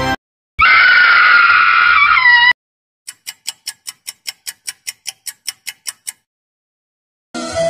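Sound-effect clips in a row: a loud, high, held sound for about two seconds that bends down at its end, then a run of sharp high ticks, about five a second for three seconds, like a fast clock.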